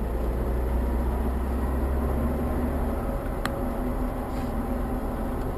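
A car driving on a wet road, heard from inside the cabin: a steady low engine rumble and tyre noise, with a single faint click about three and a half seconds in.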